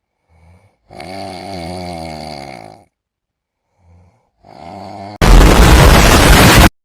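Cat-meme sound clips played in reverse: a wavering, pitched sound about two seconds long with short fragments around it, then a very loud, harsh blast of noise lasting about a second and a half near the end.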